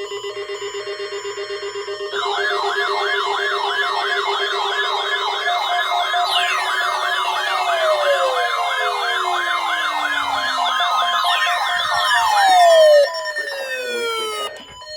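Several electronic siren and alarm tones layered together: a pulsing steady tone, joined about two seconds in by fast-warbling siren wails and repeated falling glides. They grow louder, then most cut off suddenly about thirteen seconds in.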